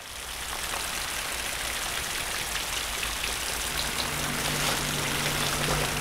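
Steady rain-like hiss fading in at the start. About halfway through, a low held music drone of two steady tones comes in under it.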